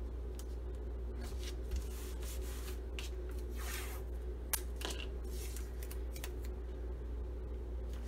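Washi tape being handled: short rustles and rips as strips are pulled off the roll, torn and pressed down on a clear plastic sheet, with one longer tearing sound about three and a half seconds in. A steady low hum runs underneath.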